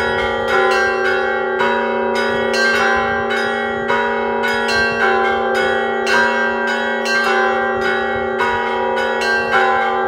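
Cathedral bells in ensemble ringing: several smaller bells struck in a quick, repeating pattern, a few strokes a second, over the steady hum of a larger, lower bell.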